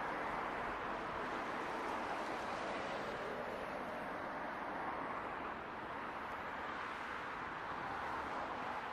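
Jet engine noise from a Boeing 777-200ER's two Rolls-Royce Trent 892 engines at takeoff thrust, heard from the ground as the airliner climbs away: a steady rushing noise that slowly grows a little fainter.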